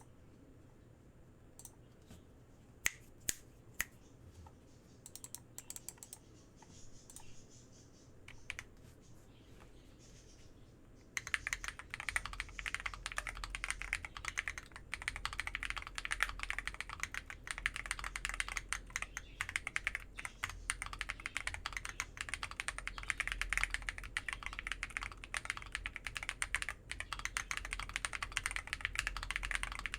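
Akko ACR Pro Alice Plus mechanical keyboard with Glorious Panda tactile switches, clear keycaps, a PC plate, foam and a tape mod, being typed on: scattered single keystrokes for about the first ten seconds, then fast continuous typing. The keystrokes have a muted 'creamy' sound.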